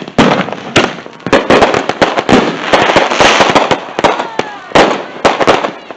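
Fireworks going off: a rapid string of sharp bangs and cracks, thickening into dense crackling in the middle before separate bangs return near the end.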